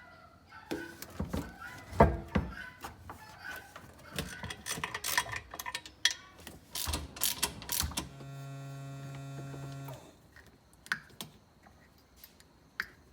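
Hand tools and metal parts clicking, knocking and ratcheting while small parts are fitted to a rebuilt Yamaha GP1300R outboard two-stroke jet-ski engine, with a steady pitched hum lasting about two seconds near the end, then a few scattered clicks.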